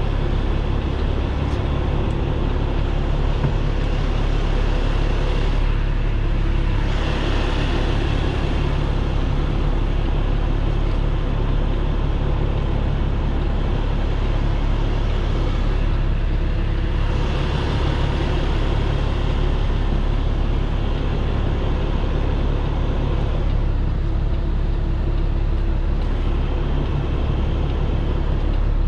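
Heavy truck's diesel engine running steadily at low speed, heard from inside the cab as a constant low hum. A higher rushing noise swells twice, about seven seconds in and again from about seventeen to twenty-three seconds.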